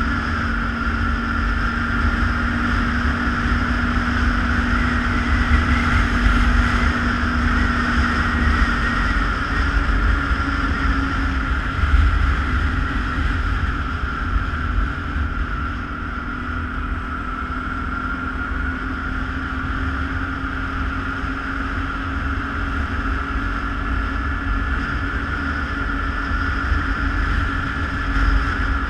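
ATV engine running steadily while riding, its pitch holding nearly level with a slight shift about a third of the way through, over a heavy low rumble.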